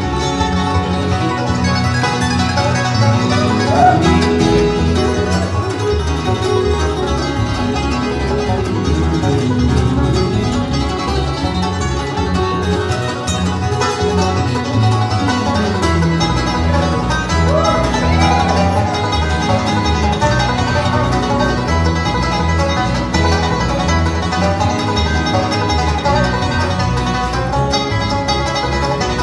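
Live bluegrass band playing: banjo, mandolin, acoustic guitar and upright bass together at a steady, driving tempo.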